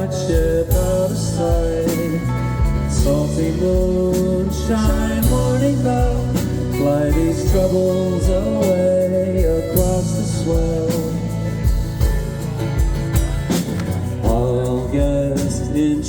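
Live band playing the instrumental introduction of a folk song: a held melody over a steady beat in the bass.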